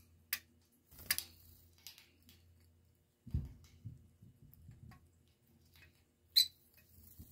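Scattered small clicks and scratches of a rosy-faced lovebird shifting its feet on the wire bars of its cage. There is a soft low thump and shuffling about three seconds in, and the sharpest click comes near the end.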